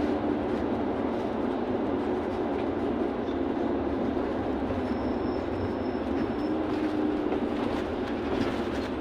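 Cabin noise of a LiAZ 6213.65 articulated city bus under way: a steady drone of engine, drivetrain and road, with a low hum that fades in and out.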